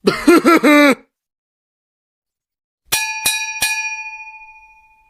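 A short comic vocal sound with sliding pitch lasting about a second, then a bell struck three times in quick succession, ding-ding-ding, its ring fading out over about two seconds.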